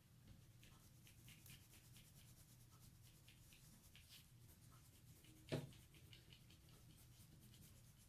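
Faint, quick scratching of coloured pencil strokes shading on paper, with one sharp knock about five and a half seconds in.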